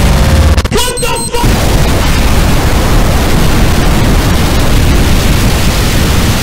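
Cartoon energy-beam blast sound effect: a loud, even rushing noise like a sustained explosion sets in about a second and a half in and holds steady. A short stretch of music and swirling sweeps comes before it.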